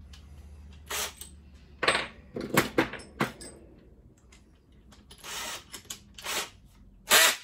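A string of short clicks and rattles as a cordless drill and a small drill part are picked up and handled, the loudest clatter near the end, over a faint steady low hum.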